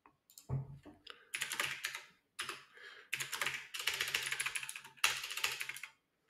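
Computer keyboard being typed on quickly in several short bursts of rapid keystrokes while shell commands are entered.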